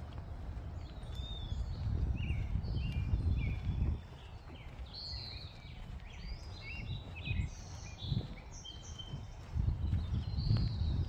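Several birds chirping and singing at once, many short rising and falling notes overlapping throughout. Under them runs a low rumble that swells twice and is the loudest thing heard.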